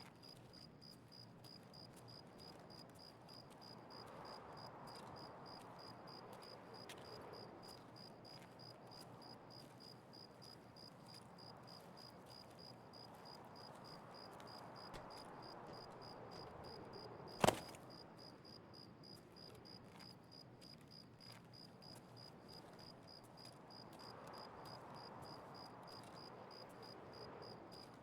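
Insects, likely crickets, chirping steadily in a fast, even, high-pitched pulse. One short sharp crack sounds about two-thirds of the way through.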